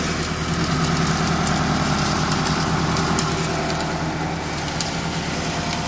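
Wood shaving machine running steadily while throwing out shavings: a constant motor hum with a whirring rush over it and a few light ticks.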